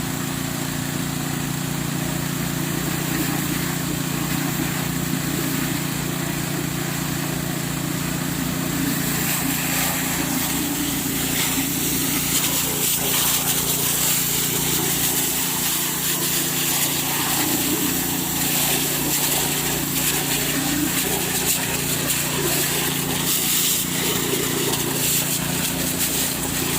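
Small petrol engine of an alkon water pump running steadily at constant speed, with rushing, splashy noise joining in from about a third of the way through.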